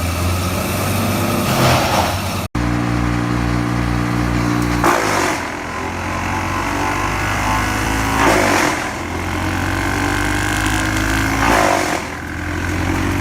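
Wood chipper running at steady high engine speed. Short bursts of chipping noise come about every three seconds as wood is fed in and shredded.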